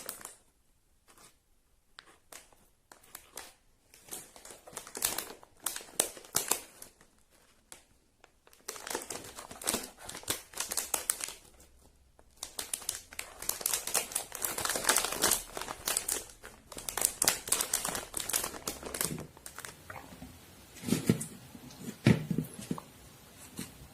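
Plastic wrappers of Momogi corn-stick snacks crinkling as they are handled and torn open, in irregular bursts with short pauses.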